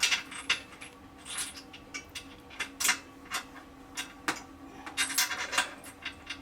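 Irregular clinks, taps and clatters of tools and metal hardware being handled during seat installation, about a dozen sharp knocks at uneven intervals over a faint steady hum.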